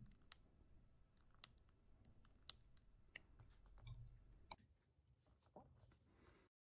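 Faint, sharp plastic clicks from the GES Pro tensioning tool turning a GAN 356 XS cube's clear tension nut, one click per setting step, about a second apart, with soft handling noise between them.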